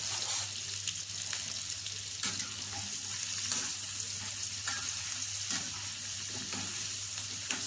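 Food sizzling as it fries in hot oil in a pan, a steady hiss broken by a few short clinks of a utensil stirring.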